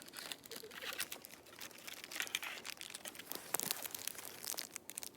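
Plastic parcel packaging being handled and torn open, a continuous run of short crinkles and crackles.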